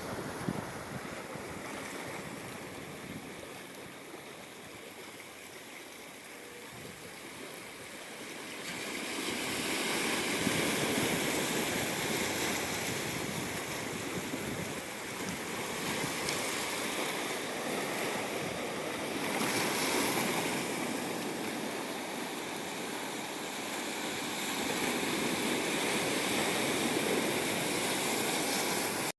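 Ocean waves washing up on the shore, a steady rush that swells about nine seconds in and rises again several times as further waves come in.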